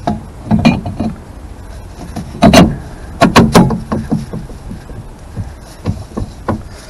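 A new brake drum being fitted over the wheel studs onto a Morris Minor 1000's rear hub and turned to line up its holes, giving a series of metallic knocks and clunks. The loudest comes about two and a half seconds in, a quick cluster follows just after three seconds, and lighter taps come near the end.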